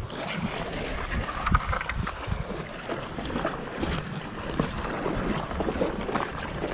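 Wind buffeting the microphone on an open rock jetty, with irregular footsteps and scrapes on the stone blocks and small waves lapping at the rocks.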